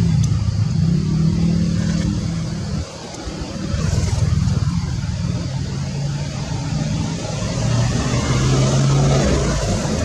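A motor vehicle's engine running, a low hum that shifts in pitch, with a brief drop in level about three seconds in.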